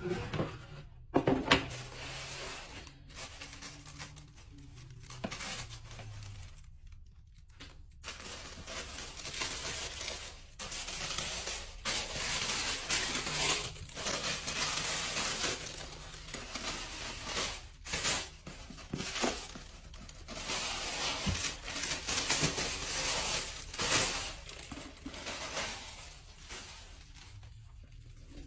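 A cardboard shoebox being handled, with a few sharp knocks about a second in, then tissue paper rustling and crinkling as it is unfolded and pulled back, in irregular bursts.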